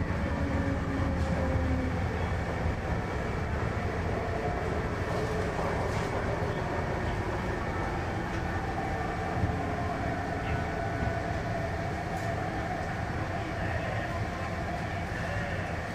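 Interior cabin noise of an MTR East Rail line Hyundai Rotem R-train, an electric multiple unit, running between stations. A steady rumble carries faint motor whine tones that drift slowly in pitch.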